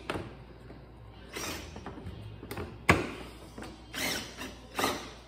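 Cordless drill-driver running in short spurts as T30 screws are started into a plastic mower cover, with one sharp click about three seconds in.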